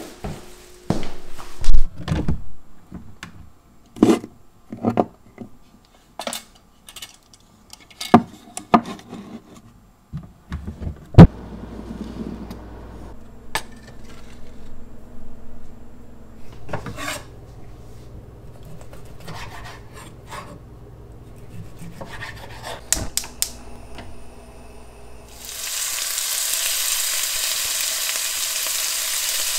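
A run of sharp knocks and clicks, the loudest about two seconds in and about eleven seconds in, then a low steady hum. Near the end, chicken pieces start sizzling in hot oil in a frying pan.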